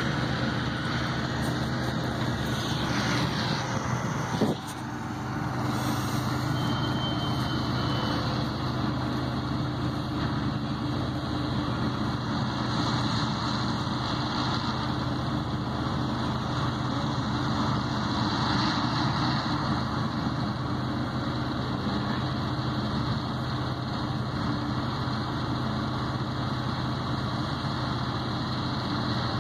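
Vehicle engine running with a steady low hum, heard from inside the cab. A single sharp knock sounds about four and a half seconds in.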